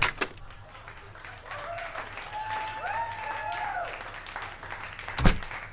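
Apartment front door unlatching with a click, then rustling and footsteps as a man walks in carrying a shoulder bag, with a few short squeaks in the middle. The door shuts with a loud thud about five seconds in.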